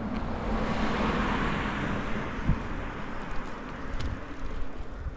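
A car driving past on a street, growing loud about a second in and then fading away.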